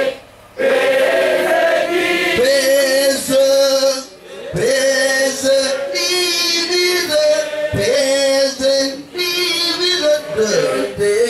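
Choir singing in long held notes, phrase after phrase, with short pauses between phrases.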